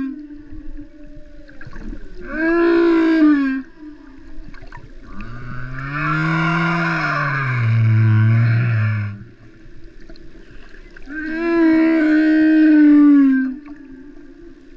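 Humpback whale song heard underwater: three long, moaning song units. The first comes about two seconds in. The second is longer and lower, rising then falling, with a rasping upper layer, from about five to nine seconds. The third is a moan that slowly falls in pitch near the end.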